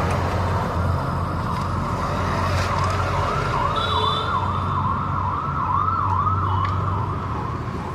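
A siren sounding a fast rising-and-falling yelp, about two sweeps a second, swelling and then fading, over a steady low rumble of traffic or engines.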